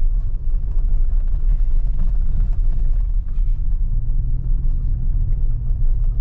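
Steady low road rumble heard inside the cabin of a moving vehicle driving on a dirt road: the engine and the tyres on the packed dirt.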